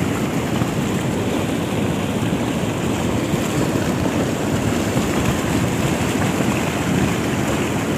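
Hot lahar, a steaming flow of volcanic mud and water, rushing steadily over rocks in a river channel.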